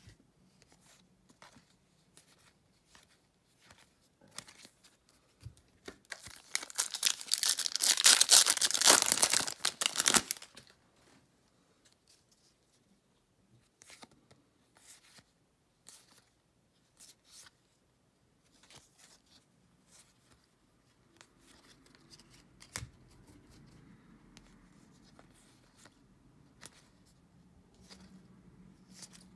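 A foil baseball card pack wrapper being torn open and crinkled, a loud tearing lasting about four seconds from around six seconds in. Faint clicks and slides of cards being flipped through a stack come before and after it.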